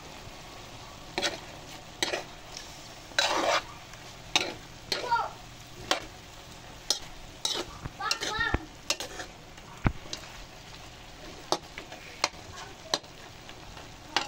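Pieces of chicken being stirred in a pan as they cook down in their juices: irregular scrapes and knocks of the utensil against the pan over a steady sizzle.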